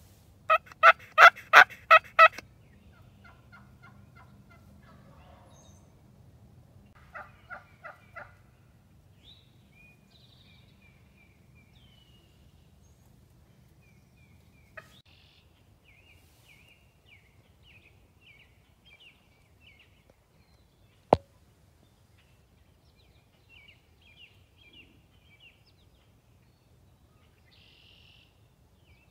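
Turkey calling: a loud run of about six evenly spaced notes right at the start, then a fainter run of three or four a few seconds later. Small birds chirp through the rest, and there is one sharp click about two-thirds of the way in.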